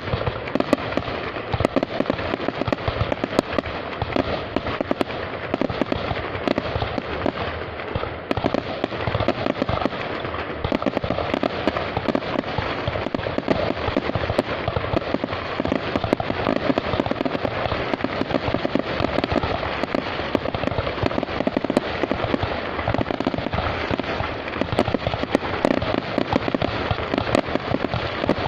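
A fireworks display in full swing: many fireworks going off at once in a dense, unbroken crackle of sharp pops and bangs, many every second.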